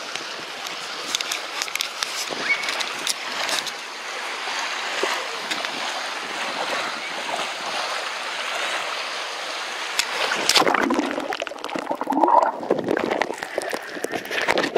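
Seawater sloshing and gurgling around a camera's microphone as the camera is dipped in and out of shallow sea water, with scattered splashes. It grows louder and more turbulent about ten and a half seconds in.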